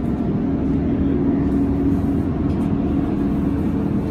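Tram running along the track, heard from inside the passenger cabin: a steady low rumble of the wheels on the rails with a steady hum over it.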